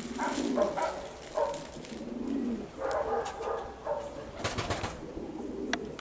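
Domestic pigeons cooing, several low calls in a row, with a short run of clicks about four and a half seconds in.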